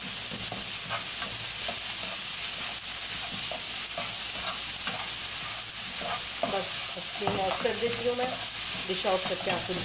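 Yellow plastic slotted spatula stirring and scraping chickpeas and diced potatoes around a frying pan over a steady sizzle of frying.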